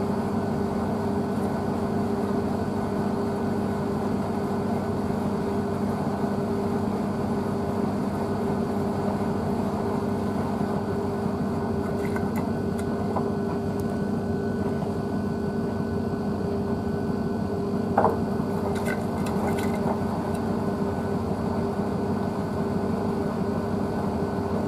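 Blomberg WNF9448 front-loading washing machine tumbling a wet dog blanket through a fabric-softener rinse: a steady motor hum with two held tones over the sound of the turning drum. A single sharp click comes about three-quarters of the way in.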